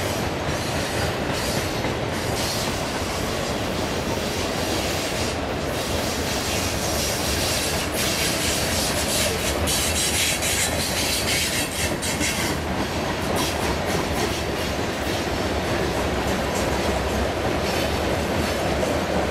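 Freight cars of a passing CSX train rolling by on a curve: steady rumble of steel wheels on rail with clattering over the joints, and a high wheel squeal that grows brighter from about eight seconds in and eases off around twelve seconds.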